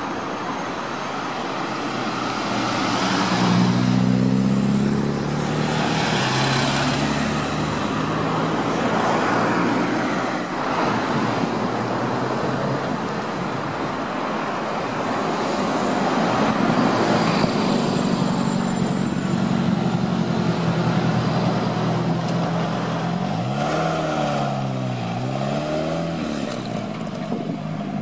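Classic rally car engines running in street traffic, swelling as cars pass, with engine revs rising and falling several times in quick succession near the end.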